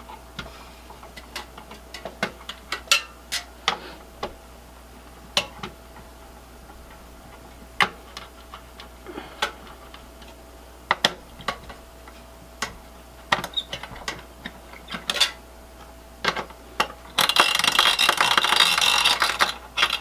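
Screwdriver backing out the spring-loaded captive screws of a CPU heatsink in a Dell T320 server: scattered clicks and ticks, then near the end a louder squeak lasting about three seconds from a squeaky spring on one screw.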